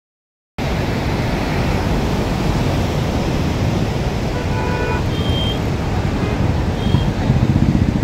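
Steady rushing of heavy river floodwater pouring through barrage spillway gates, blended with the running of motorcycles and cars on the bridge road alongside. A few short higher tones sound about halfway through.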